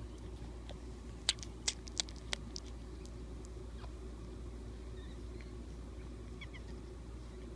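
Newborn Yorkshire terrier puppies nursing: a quick run of four sharp sucking clicks a little over a second in, and a pair of tiny faint high squeaks near the end, over a steady low hum.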